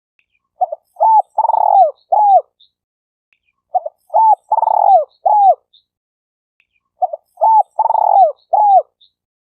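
Spotted dove cooing: three identical phrases about three seconds apart, each a short burst of coos with one longer note in the middle and a falling end to several notes.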